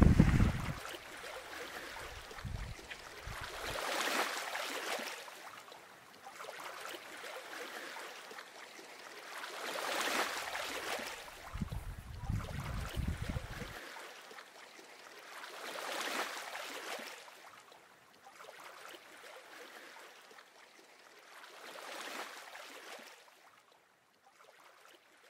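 Outdoor ambience: a soft rushing noise that swells and fades about every six seconds, with wind buffeting the microphone twice as a low rumble.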